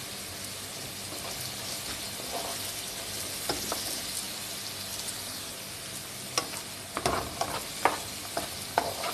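Eggplant, green beans and onion sautéing in oil in a nonstick frying pan, a steady sizzle. From about six seconds in, a utensil stirring the vegetables scrapes and clicks against the pan several times.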